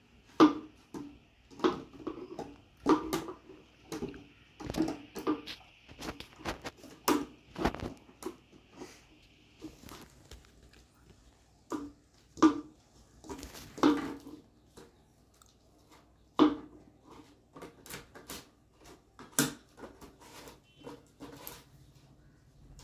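A puppy biting and shoving an empty plastic drink bottle, the bottle crackling and knocking against the mat and stone floor in irregular strikes. The strikes come thick and fast at first, then thin out to scattered knocks after about ten seconds.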